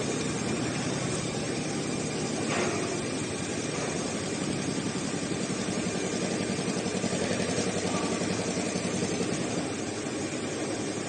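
Industrial heating-wire sewing machine running steadily with a fast, even mechanical chatter, and one short click about two and a half seconds in.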